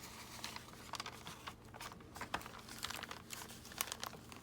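Paper and card rustling and crinkling as a handmade junk journal's pages are handled, with light scattered clicks and taps.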